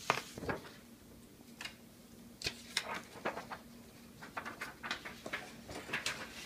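Handling noise: irregular light clicks, taps and rustles as the camera is moved over a tabletop of paint supplies. A short burst comes at the start, and a busier run follows from about two and a half seconds in. A faint steady hum sits underneath.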